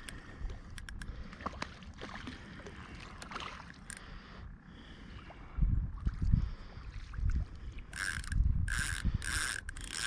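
Spinning fishing reel clicking and ratcheting as a hooked catfish is reeled in and landed. Low handling bumps come in about halfway through, and four short hissing bursts follow near the end.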